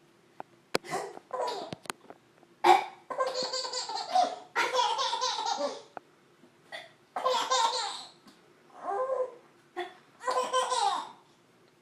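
An eight-month-old baby laughing in repeated bursts of belly laughter, the longest lasting over a second. Short, sharp fake coughs from an adult come between the bursts and set off each new round of laughing.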